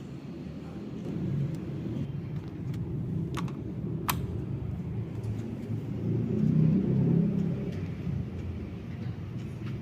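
Mitszuko 56-inch industrial ceiling fan running: a low, uneven rumble that swells about six to seven seconds in. Two sharp clicks come around three and four seconds in.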